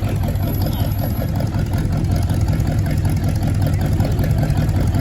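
Rat rod sedan's engine with three two-barrel carburettors idling with a steady, even rumble.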